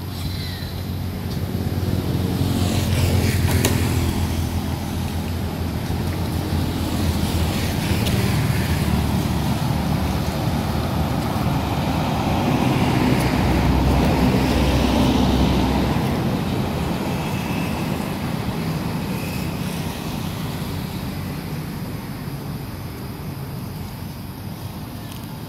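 Road traffic: several vehicles pass one after another, each swelling and fading, loudest around the middle and dying down near the end.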